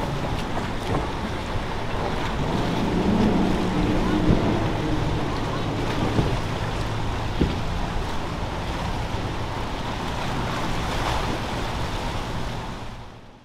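Wind buffeting the microphone over surf and the running of boat motors, with a motor's hum standing out a few seconds in. The whole sound fades out just before the end.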